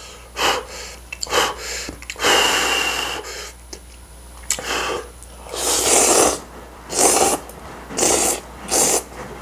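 A person slurping and sucking in mouthfuls of saucy instant noodles, in a series of about eight noisy slurps, the longest lasting about a second.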